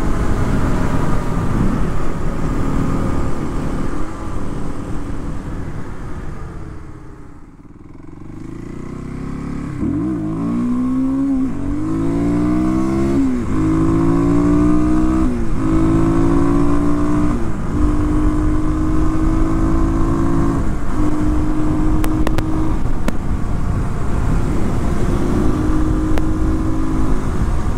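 2019 Kawasaki KLX250's single-cylinder engine under way, heard from the rider's seat. It drops away as the bike slows off the throttle, then from about ten seconds in pulls hard, climbing in pitch and falling back through several upshifts before settling into a steady cruise.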